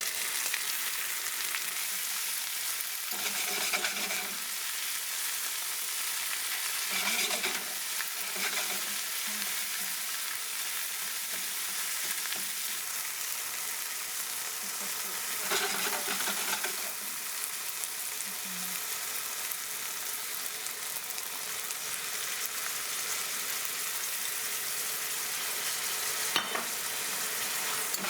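Pork and onion sizzling steadily in a frying pan, stirred and turned with a utensil a few times, which scrapes and clatters against the pan.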